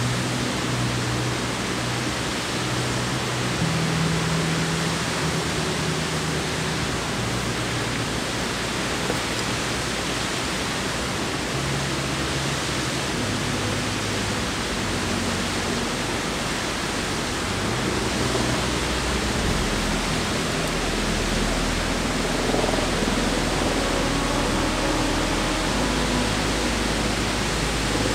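Waterfalls cascading down a rock face, a steady, even rush of falling water.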